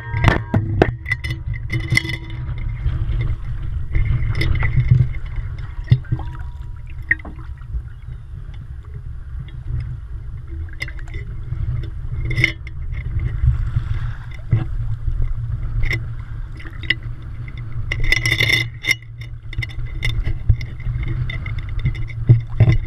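Action camera in its waterproof housing bobbing at the sea surface: a muffled low rumble of water against the housing, with water sloshing and several sharp splashes and knocks, the loudest about 18 seconds in.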